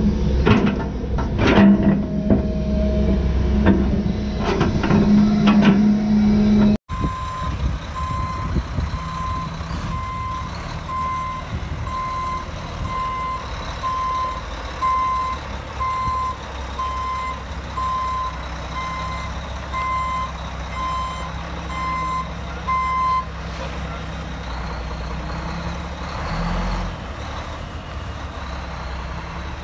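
A John Deere 210G excavator's diesel engine runs with knocks and clunks as its bucket dumps dirt into the truck bed. Then a dump truck's backup alarm beeps about once a second over its diesel engine; the beeping stops a few seconds before the end and starts again at the very end.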